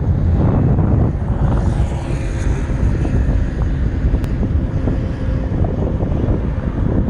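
Gusty wind buffeting the microphone in a loud, uneven rumble, over the steady noise of traffic.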